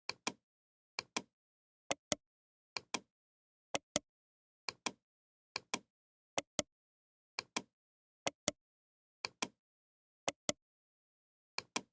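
Pairs of sharp clicks, two quick clicks about once a second in a steady rhythm, with dead silence between.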